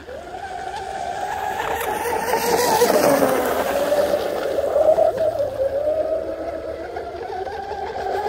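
Pro Boat UL-19 RC hydroplane running at speed, its Oxidean Marine 4082 2200KV six-pole brushless motor and propeller giving a high whine with a hiss of spray. The whine grows louder as the boat comes near, drops in pitch as it passes about three seconds in, then wavers as the boat carries on around the course.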